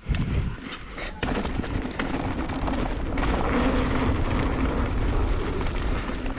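Mountain bike ridden fast down a dry dirt trail: wind buffeting the camera's microphone over the tyres rumbling on the hardpack, with knocks and rattles from the bike over bumps near the start. A steady low hum joins in about a second in.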